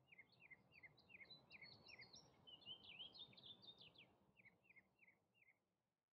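Faint birdsong: one bird repeats a short downward-slurred chirp about three times a second, with a quicker, higher twittering over it in the middle, above a soft low background rumble. It cuts off suddenly near the end.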